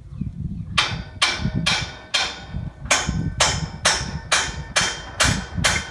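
Hammer blows on a metal scaffold fitting, about eleven strikes at roughly two a second starting about a second in, each blow ringing briefly.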